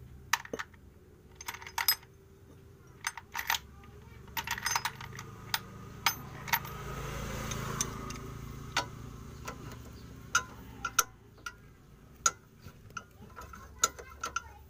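Sharp metallic clicks from a socket ratchet wrench working the nut of a Suzuki APV's front stabilizer link, in scattered single clicks and short quick runs that come thicker near the end. A soft rushing sound swells and fades midway.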